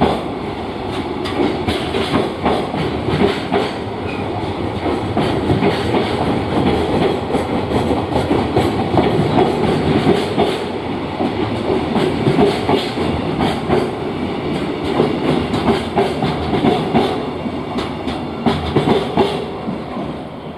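A long freight train's wagons rolling past close by, the wheels clicking over the rail joints in a quick, steady clickety-clack under continuous rumbling rail noise.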